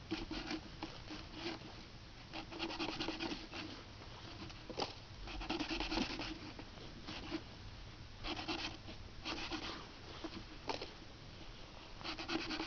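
A G-10 and 6-4 titanium composite knife blade cutting into a wooden pole, in a series of uneven scraping strokes with short pauses between them. Two sharp clicks come through, one a little before the middle and one near the end.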